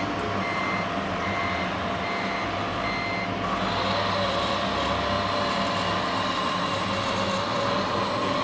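Reversing beeper from an RC truck's sound module, beeping about one and a half times a second over a steady low engine hum. The beeps stop about three seconds in, and a steady higher whine takes over.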